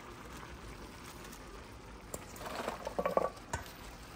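Pot of cook-up rice simmering softly, with a short bout of rustling and a few light knocks from about two seconds in as handfuls of fresh callaloo leaves are pushed into the pot.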